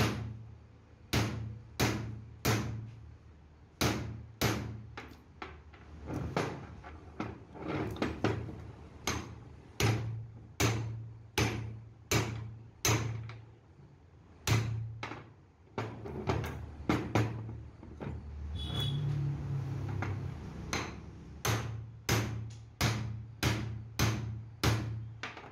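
Hand hammer striking a steel drift on a truck driveshaft universal joint's bearing cup to drive the cup through the yoke: sharp metallic blows, often about two a second, in runs with short pauses.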